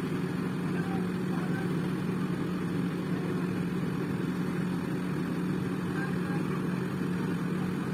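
Diesel engine of a Volvo tracked excavator running steadily under load while it lifts a site cabin, with a few faint distant shouts.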